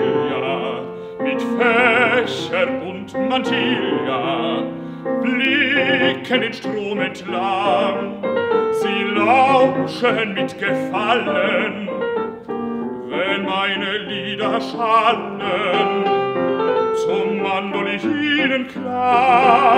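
Baritone singing a German art song in full operatic voice with vibrato, accompanied by grand piano.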